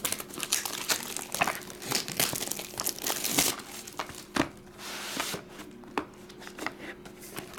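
Plastic shrink wrap being torn and crumpled off a trading-card hobby box, a dense run of sharp crackles and rustling that is thickest a couple of seconds in. Near the end come quieter scuffs of the cardboard box being handled.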